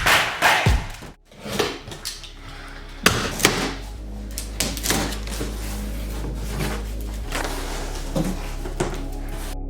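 Irregular knocks and clatter over steady background music.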